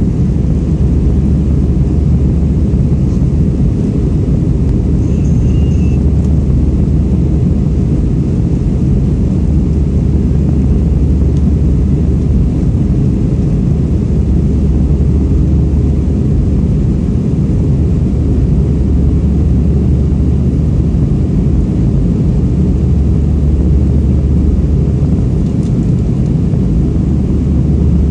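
Steady low drone of an airliner's jet engines and rushing air, heard inside the passenger cabin in cruise.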